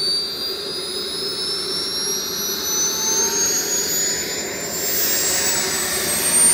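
Small gas turbine of a radio-controlled model jet spooling up: a high whine rising steadily in pitch, with a rush of exhaust noise building about four and a half seconds in.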